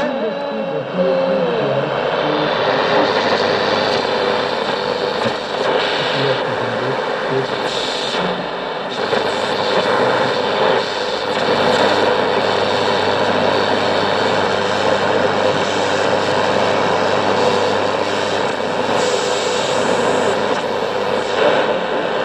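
Sony CFM-155S radio cassette recorder's speaker playing loud radio hiss and static with a steady whistle, as its dial is tuned on the medium-wave band. A few whistles glide in pitch in the first two seconds as the tuning moves.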